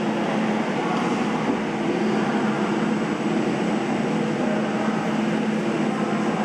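Steady industrial machine noise with a constant low hum, running evenly without breaks.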